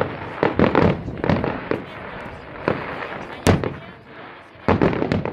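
Fireworks display: aerial shells bursting in an uneven series of sharp bangs and crackles, the loudest bang about halfway through and a quick cluster of bangs near the end.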